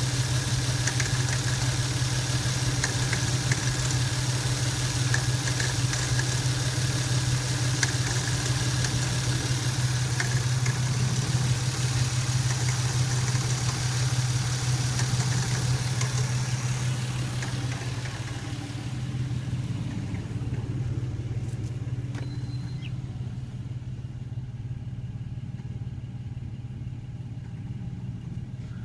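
Lexus SC300's 2JZ-GE inline-six idling steadily, with a weird rattling noise from the front of the engine bay and scattered light ticks over the first half. It turns quieter and duller over the last ten seconds or so.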